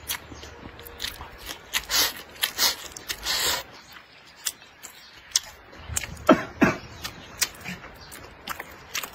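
Close-up eating sounds: wooden chopsticks clicking and scraping against a ceramic rice bowl, with mouthfuls of rice being shovelled in and chewed. A brief vocal sound comes about six seconds in.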